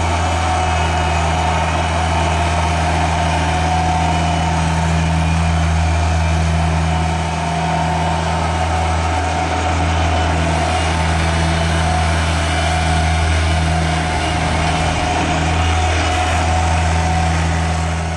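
Toro Reelmaster 3500-D mower's diesel engine running steadily, a low even hum with a fainter steady whine above it.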